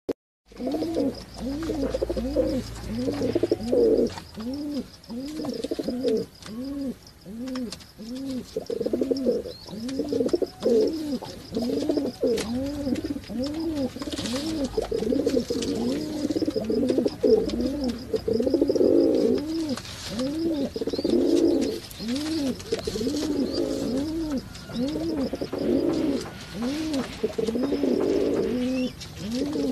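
A flock of domestic pigeons cooing continuously: overlapping coos that each rise and fall, about three every two seconds.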